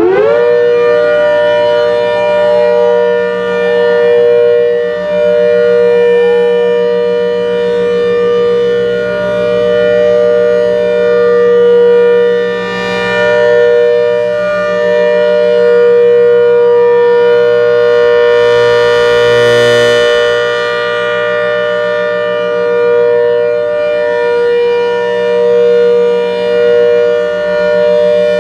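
ACA Hurricane siren head, fed by a 7½ HP Thunderbolt blower, finishing its wind-up and then holding a steady two-tone chord at full speed. The sound swells and fades repeatedly as the horn rotates.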